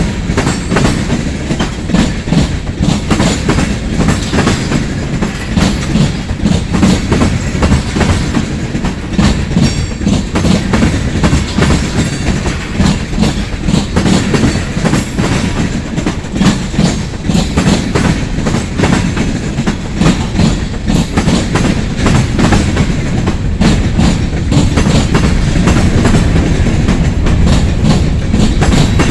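Freight cars of a long train rolling past close by, their wheels clicking and clanking over the rail joints in a steady run of short knocks, under a continuous rumble.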